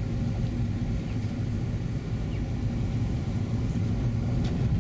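Car driving along an unsealed dirt road, heard from inside the cabin: a steady low rumble of engine and tyre noise.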